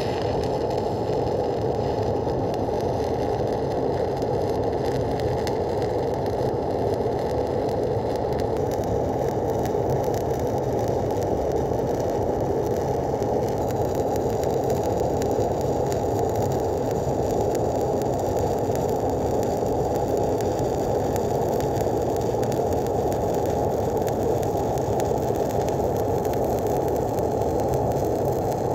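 Shielded metal arc (stick) welding arc burning steadily as a stringer fill bead is run overhead: a continuous, even crackle and sizzle.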